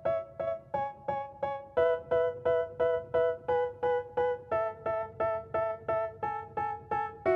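Background music: a keyboard playing short repeated chords, about two to three a second, moving to a new chord every couple of seconds, as the intro of a song.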